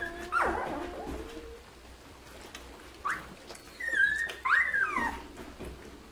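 Nine-day-old Irish Setter puppies whimpering and squealing. A falling squeal comes just after the start, a short cry about three seconds in, and a run of rising and falling squeals at about four to five seconds.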